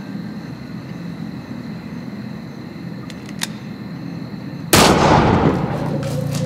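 A single loud pistol shot about five seconds in, ringing down afterward, with two faint clicks shortly before it; a low hum lingers after the shot.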